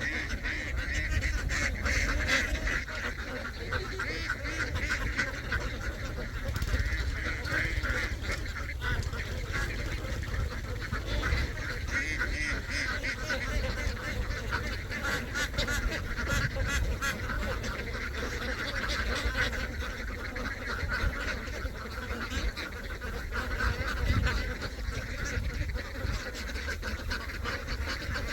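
A large flock of domestic ducks calling all at once, a dense, continuous chorus of overlapping quacks.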